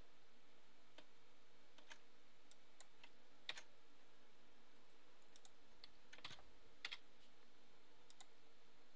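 Scattered faint clicks of a computer keyboard and mouse, a dozen or so at irregular intervals, over a steady low hiss.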